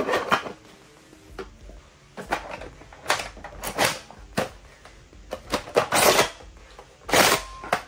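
An irregular string of sharp mechanical clicks and clacks, like hard parts being handled or an action being worked, with the loudest cluster near the end.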